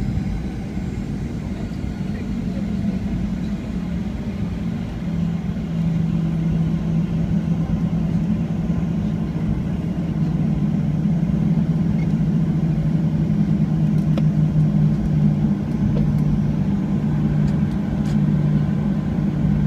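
Boeing 737-400's CFM56 jet engines running at taxi power, heard from inside the passenger cabin as a steady low drone with a humming tone. It grows slightly louder about halfway through.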